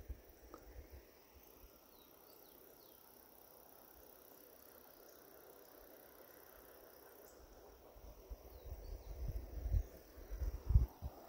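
Steady high-pitched drone of insects, with a few brief falling bird chirps. Low thumps and rumbles on the microphone in the last few seconds.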